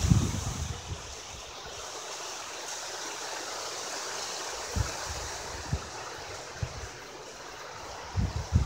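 Hurricane wind and rain: a steady rushing noise, with gusts buffeting the microphone at the start and again near the end, and a few brief low thumps in between.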